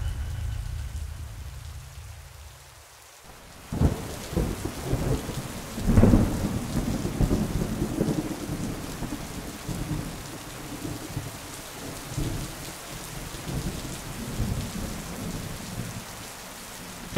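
A low drone fades away; then, about four seconds in, heavy rain and thunder cut in suddenly as a front door opens onto a storm, with a louder rumble of thunder a couple of seconds later and rolling rumbles after it.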